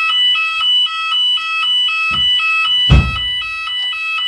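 Shop fire alarm's electronic two-tone alert sounding between the recorded evacuation announcements, switching between a lower and a higher note about four times a second. A heavy thump about three seconds in, with lighter thumps around it.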